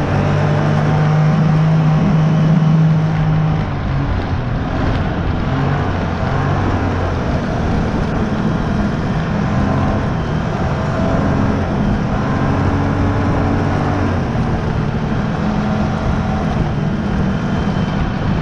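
Snowmobile engine running steadily while underway, heard from the rider's seat; it is a little louder for the first three seconds or so, then holds an even note.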